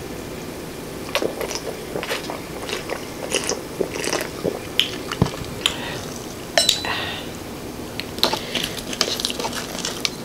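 Close-miked mouth sounds around a drink: sips, swallows and irregular wet clicks and smacks of the lips and mouth, starting about a second in, with one louder sharp click about two-thirds of the way through.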